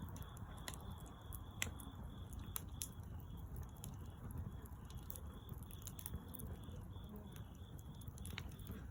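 Wood bonfire crackling: scattered sharp pops and snaps over a low steady rush.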